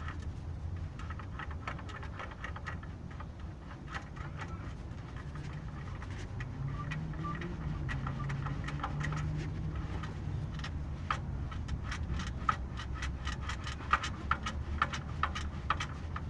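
Honda Fit engine running with irregular sharp ticking and knocking from the air-conditioning compressor clutch, a sign of a faulty clutch. The clicks come faster and louder in the second half.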